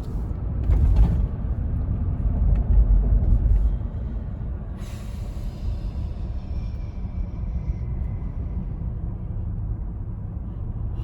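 Low road and engine rumble of a moving vehicle, heard from inside, louder for the first few seconds. About five seconds in, a hiss starts and fades away.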